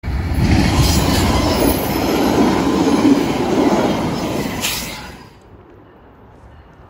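VIA Rail passenger train passing close by at speed: a loud rush of steel wheels on the rails with a brief squeal near the end. It stops abruptly about five seconds in, leaving only a faint steady background.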